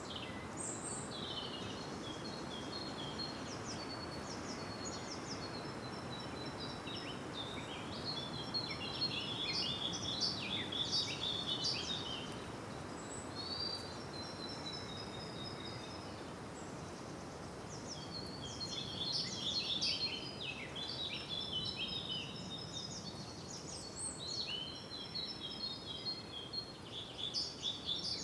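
Birds singing in several bouts of quick chirps and trills over a steady background hiss.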